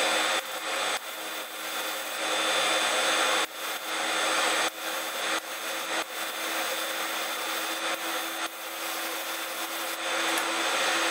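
Compressed-air spray gun hissing steadily as it sprays a 2K polyurethane topcoat onto a cabinet door panel, with short breaks where the trigger is released between passes.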